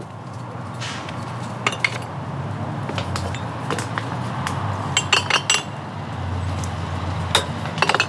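Glass bottles clinking as they are dropped into a collection basket: a handful of separate clinks, with a quick run of them about five seconds in, over steady low background noise.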